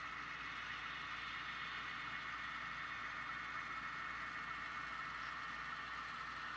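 Steady diesel engine sound from the sound-equipped HO scale model diesel locomotives as the train rolls slowly forward. It is thin and even, with little bass.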